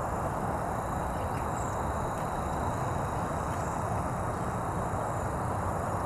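Cedar waxwing flock calling: a continuous thin, very high shimmer of calls over a steady rushing background noise, which is the loudest part.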